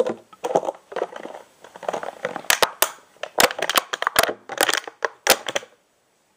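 Loud, irregular crunching and crackling, stopping abruptly about three-quarters of a second before the end.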